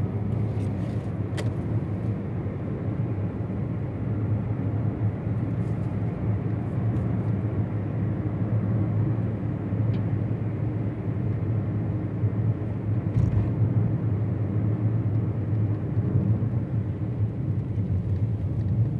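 Steady low drone of a moving car heard from inside its cabin: engine and tyre noise at cruising speed, with a few faint ticks.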